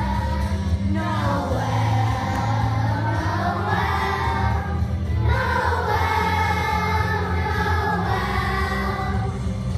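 Children's choir of first graders singing a Christmas song in unison over steady instrumental accompaniment.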